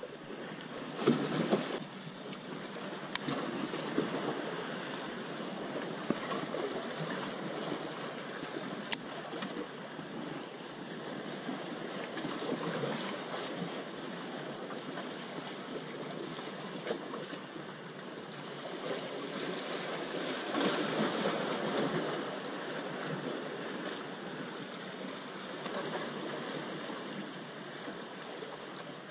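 Small sea waves washing against the rocks of a breakwater, swelling and easing every few seconds, with a brief knock about a second in.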